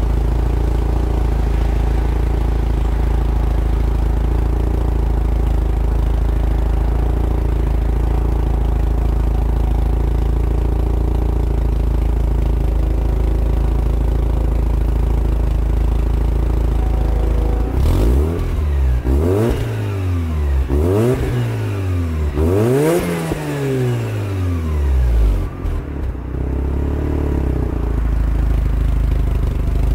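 Turbocharged 2005 Mazda RX-8's two-rotor rotary engine idling steadily through its exhaust, then revved three times in quick succession about two-thirds of the way in, each rev rising and falling in pitch, before it settles back to idle.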